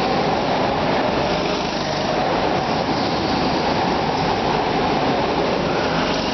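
Go-kart engine running at speed through a lap, a loud, steady, noisy drone.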